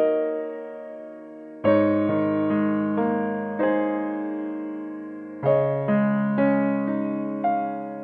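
Background piano music: slow, gentle chords struck every second or two, each ringing and fading before the next.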